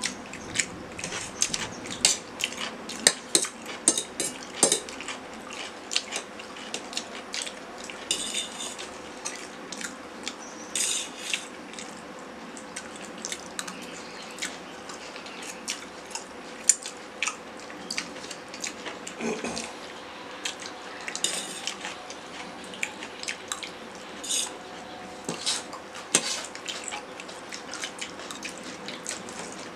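Metal forks clinking and scraping against stainless steel plates as two people eat noodles, a steady run of short sharp clicks that comes thickest in the first few seconds.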